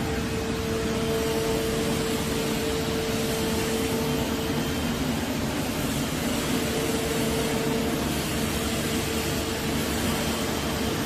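Steady mechanical running noise with a steady mid-pitched whine over it.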